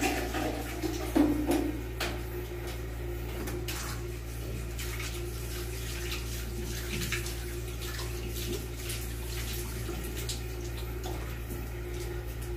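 Tap water running into a bathroom washbasin as it is washed by hand, with scattered knocks and scrapes and a louder knock about a second in.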